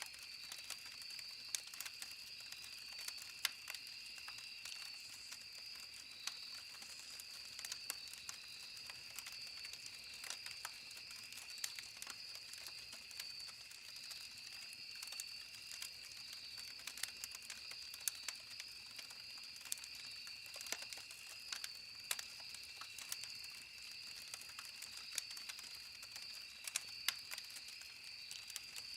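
Campfire crackling with irregular sharp pops and snaps of burning wood, over a steady high-pitched chorus of insects.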